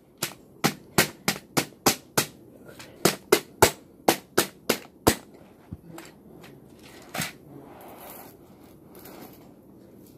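Keys being pried off a computer keyboard one after another: a quick run of sharp plastic snaps, about three a second. After about five seconds they thin out, leaving one more snap and some rustling.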